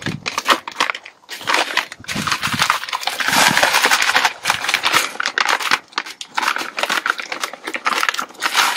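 A plastic bag of gravel crinkling and the gravel crunching as it is handled and scooped out by gloved hands, sparse at first and then a dense run of crunching and rustling from about three seconds in.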